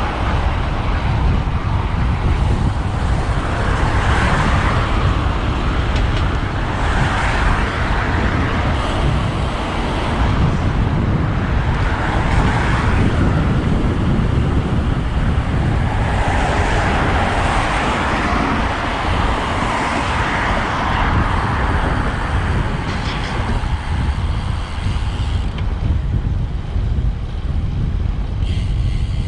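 Road traffic passing, several vehicles swelling and fading in turn, over a steady low rumble of wind on the microphone of a moving bicycle.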